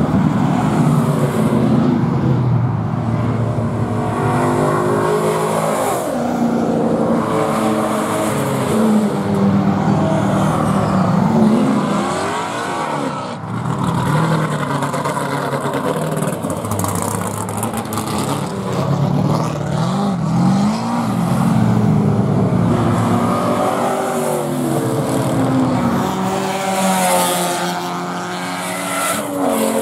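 Several performance cars running hard on a racetrack, engines revving and passing one after another, their pitch sweeping up and down as each goes by.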